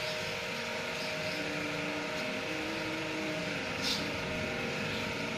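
Steady machine hum with a few held tones and a hiss above it, with one short, sharper hiss about four seconds in.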